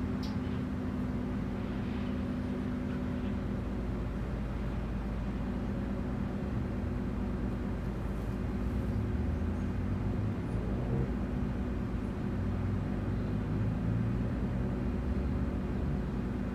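Mitsubishi Fuso Aerostar city bus's six-cylinder diesel engine running, heard from inside the passenger cabin as a steady low hum, growing slightly louder past the middle.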